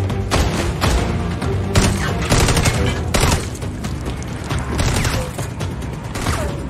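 Gunfire: a rapid, irregular string of shots, thickest in the first few seconds, over film music.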